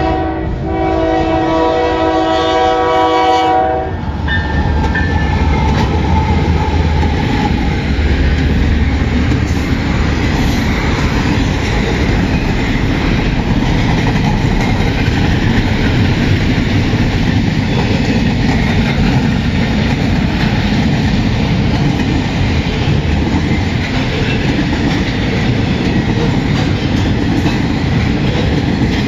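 Diesel freight train horn blowing a chord of several tones until about four seconds in, followed by the low rumble of the CN locomotives going by. Then the train's double-stack container cars roll past steadily on the rails.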